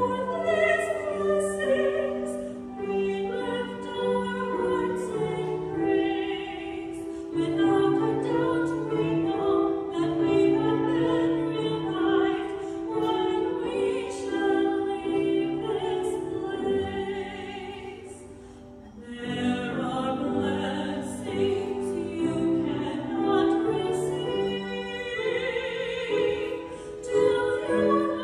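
Classical-style music: sustained sung notes with vibrato over an instrumental accompaniment, easing into a short lull about two-thirds of the way through before the next phrase.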